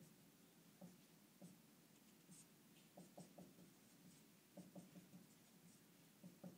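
Dry-erase marker writing on a whiteboard: faint short squeaks and taps of pen strokes, coming in small clusters.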